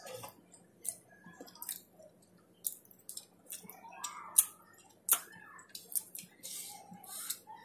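Close-up eating sounds: chewing with irregular wet lip smacks, then sharp smacking as fingers are licked clean, loudest a little past the middle.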